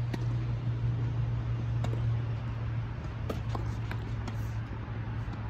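Tennis ball being hit in a doubles rally: about five sharp pops from racket strikes and bounces, unevenly spaced, over a steady low hum.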